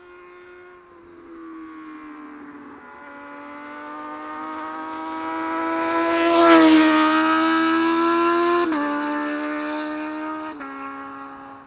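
Motorcycle engine revving high and accelerating through the gears: the pitch climbs steadily and drops a step at each upshift. It gets louder to a peak about six and a half seconds in, where the pitch dips as it goes by, and then cuts off suddenly.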